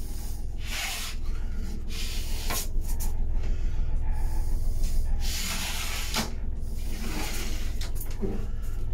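A series of short rubbing and scraping sounds from wooden cabin cupboards and fittings being handled, over a steady low hum.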